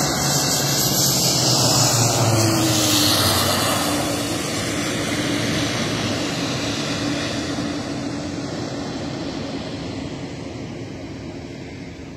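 Airplane engine noise as the plane comes in to land, loudest about two seconds in and then fading steadily, with a faint tone that dips slightly in pitch.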